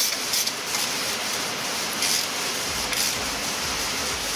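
Steady background hiss with a few faint light clicks as a small ratchet is fitted to the brake rotor's Torx retaining screw; a low hum comes in about two-thirds of the way through.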